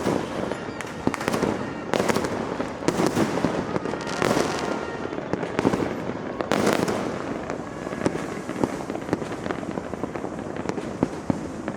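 Many fireworks going off around at once: a near-continuous barrage of bangs over steady crackling, the biggest bursts in the first seven seconds, then thinning to scattered sharp cracks.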